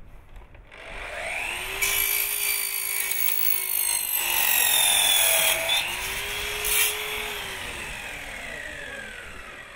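Sliding mitre saw with an Irwin blade: the motor whines up to speed about a second in, and the spinning blade is lowered to cut through another maker's hardened steel saw blade. It is then switched off and winds down with a long falling whine near the end.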